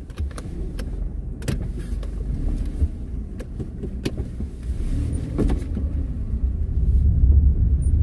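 A car driving, heard from inside the cabin: a steady low rumble of engine and road, with occasional knocks and rattles, growing louder near the end.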